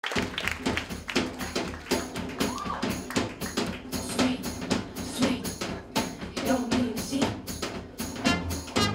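Live jazz band opening a swing number: a steady clicking beat, about two to three strokes a second, with voices over it. A horn comes in near the end.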